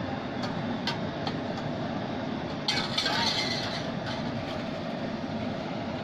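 Steady roar of outdoor cooking burners under a large pot of boiling mutton curry, with a few small clicks early and a brief louder hiss about three seconds in.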